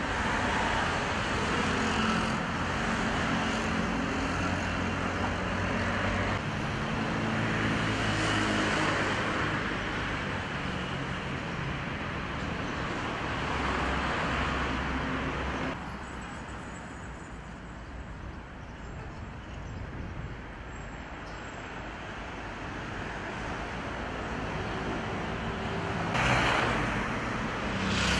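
City street traffic: passing cars' engines and tyre noise swelling and fading. A little past halfway it drops suddenly to quieter, more distant traffic, then builds again near the end with another car going by.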